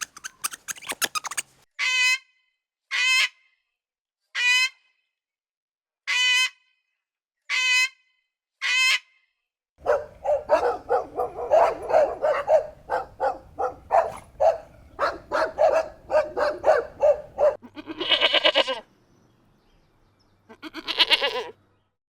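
Farm animal calls: six short, pitched calls about a second and a half apart, then a long run of rapid calls lasting about eight seconds, and two shorter bursts near the end.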